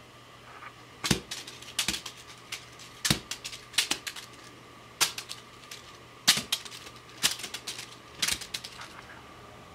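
Crumpled foil ball cat toy crackling and skittering in a fabric storage bin as a hand pushes it around, in about eight short bursts of sharp crinkly clicks from about a second in.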